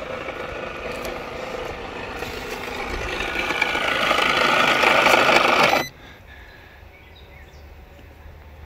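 Small 12-volt air compressor built into a portable jump starter running with a steady buzzing drone that grows louder, then cuts off abruptly about six seconds in as it is switched off.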